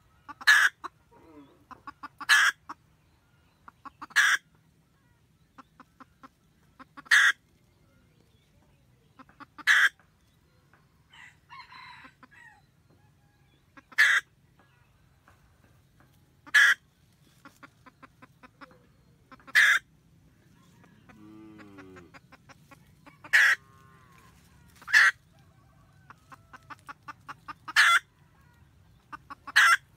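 Red junglefowl hen cackling to call the cock: runs of quick soft clucks, each ending in a loud, sharp note, repeated about every two to three seconds.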